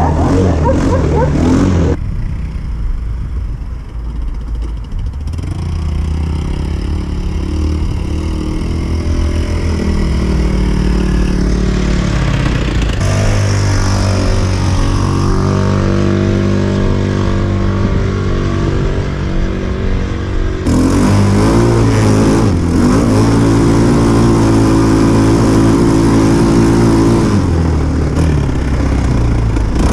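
Small 150cc quad bike (ATV) engine with a CVT variator under way. The revs rise and fall as it accelerates and eases off, with a louder stretch of harder running about two-thirds of the way through.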